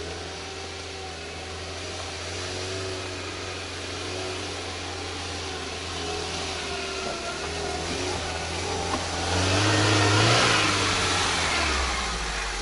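Lada Niva engine running as the car creeps along a muddy forest track, growing louder as it comes closer. It is loudest about ten seconds in, then falls back near the end.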